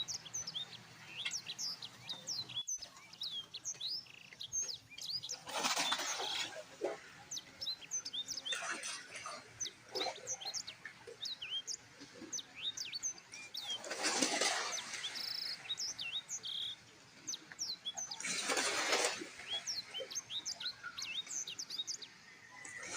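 Many small birds chirping in a dense, continuous chorus of short, quick-sweeping high calls. Four times, about a second each, a rush of noise swells over the chirping.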